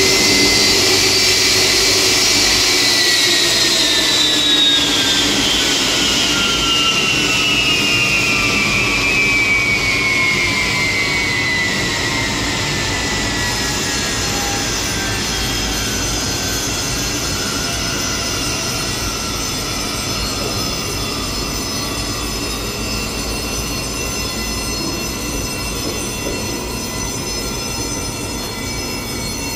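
Boeing 757-300's jet engines spooling down after shutdown: a high whine glides steadily down in pitch over some twenty seconds while the overall sound slowly fades, over a steady rumble and a steadier whine that carry on.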